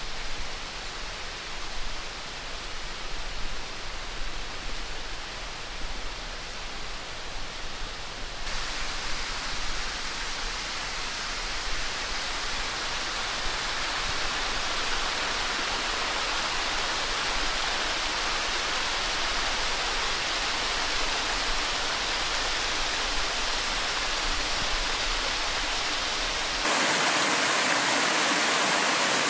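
Steady rush of running water, growing louder.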